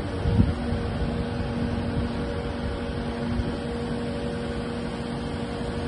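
Kubota KX080-4 midi excavator's diesel engine running under hydraulic load as the boom and arm are worked, a steady mechanical noise with a steady whining hum over it. A brief knock sounds about half a second in.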